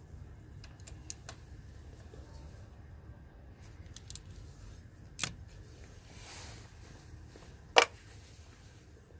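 Scattered metallic clicks and clinks of a Torx T30 bit socket working a screw loose on the engine block. The loudest is a sharp, briefly ringing clink near the end, and a short soft hiss comes a little after the middle.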